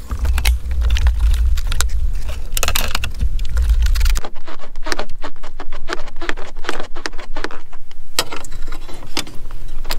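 Rapid clicks, knocks and scraping of a rubber coolant hose and its plastic connector being wiggled and pried loose by hand with a screwdriver on a BMW N54 engine. A strong low rumble sits under the first four seconds, then stops suddenly.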